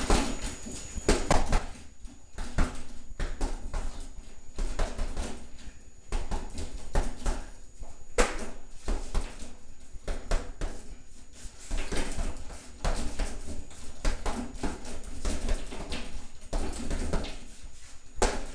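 Punches landing on an Everlast heavy punching bag in quick, irregular flurries of several thuds a second, with short pauses between combinations.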